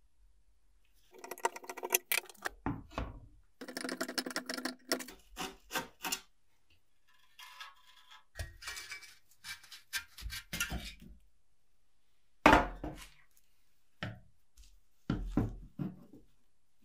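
Dismantling a rusty metal filmstrip projector: a screwdriver scraping and grating against rusted screws, then metal parts rubbing and clicking as they come apart. Several sharp knocks come in the second half as parts are set down on the wooden bench.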